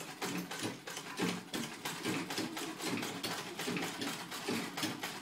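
Old sewing machine running: a rapid, even clatter of stitching strokes, several a second. Its drive belt is slack, according to the family.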